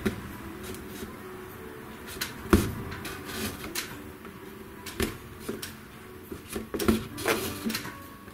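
Irregular knocks, taps and clatter from hand upholstery work on an antique Voltaire armchair, the sharpest knock about two and a half seconds in and a cluster of knocks near the end.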